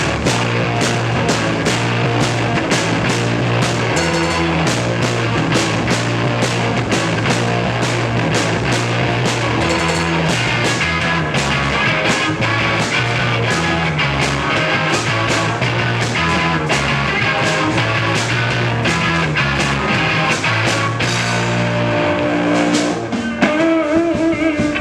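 Punk rock band playing live: distorted electric guitar, bass and drum kit on a steady beat. Near the end the full band drops out and a guitar is left ringing on a few notes.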